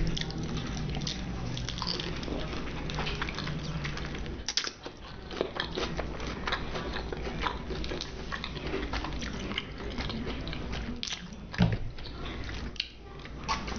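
A person biting and chewing Chinese takeout food close to the microphone: a steady run of short wet clicks and smacks, with one louder knock about three-quarters of the way through.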